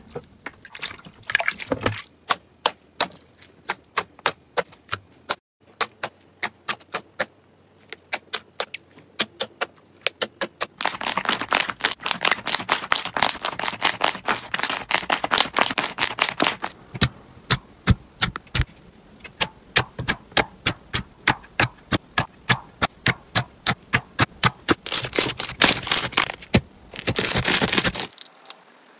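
Slime being pressed and squeezed by hand, giving rapid sharp clicks and pops, a few a second. Twice it thickens into dense crackling for several seconds, then it stops abruptly near the end.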